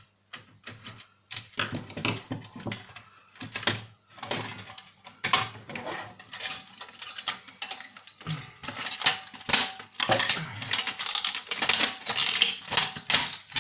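Irregular clicks, taps and rattles of a PlayStation 1 console's plastic and metal parts being handled and worked apart during disassembly. Sparse at first, getting busier from about five seconds in.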